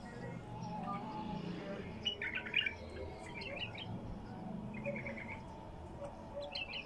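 Caged wild-caught bulbul singing short phrases of bright chirping notes, the loudest about two seconds in and several shorter ones after.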